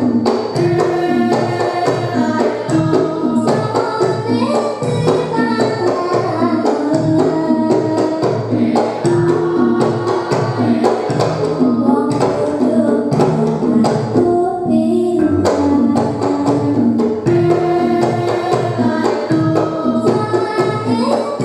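A Javanese gamelan ensemble playing in the pelog tuning: struck bronze metallophones and bonang kettle gongs sounding a steady run of notes, driven by the kendhang hand drum, with a girl's voice singing the melody over it.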